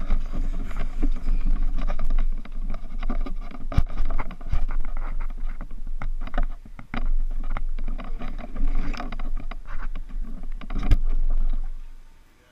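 Handling noise on a GoPro mounted on an RC speedboat's deck as the boat is lifted and carried: uneven rubbing and rumbling with many knocks. It stops fairly abruptly near the end, once the boat sits on the water.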